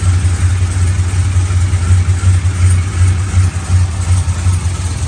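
2004 Chevrolet Silverado's 4.8L Vortec V8 idling with an uneven, loping pulse, a "double bubble" from a freshly installed Truck Norris camshaft running on the stock, untuned engine calibration.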